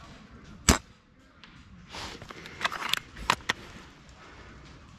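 A VSR bolt-action spring airsoft sniper rifle fires once with a sharp crack, under a second in. About two seconds later the bolt is worked: a short rustle and clatter ending in two sharp clicks.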